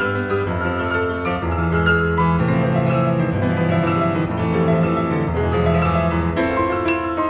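Background music with slow, held chords that change every second or so.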